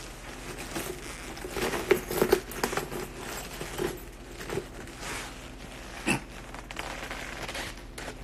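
Handling noise on a phone microphone: fabric rustling and scattered knocks as the phone is moved about. The rustles are densest in the first few seconds, and there is one louder knock about six seconds in.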